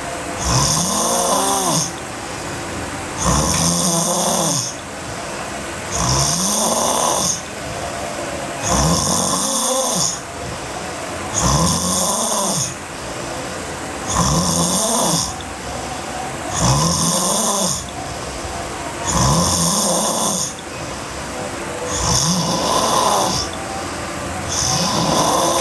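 A girl snoring heavily in sleep, loud and very regular, about one snore every two and a half seconds. Each snore rises and then falls in pitch.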